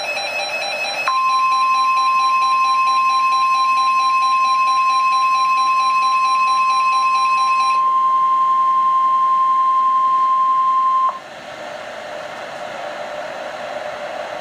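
NOAA Weather Radio's 1050 Hz warning alarm tone, one steady loud tone held for about ten seconds over the radio: the signal that a warning, here a flash flood warning, is about to be broadcast. A rapid electronic beeping runs alongside it until a little past halfway. After the tone cuts off there is steady radio hiss.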